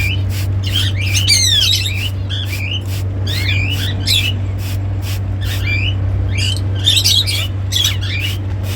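Budgerigar chirping and chattering in quick warbling calls over a steady low hum.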